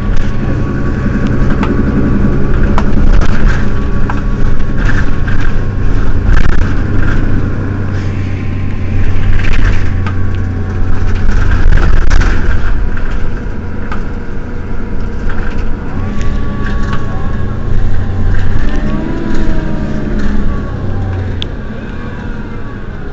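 Mercedes-Benz Citaro city bus standing with its rear-mounted engine idling: a loud, steady low running that eases off about halfway through, with scattered light clicks over it.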